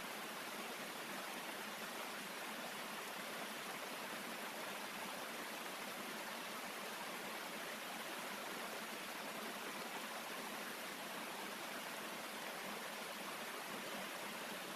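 Small mountain stream cascading over rocks in a steady, unbroken rush of water.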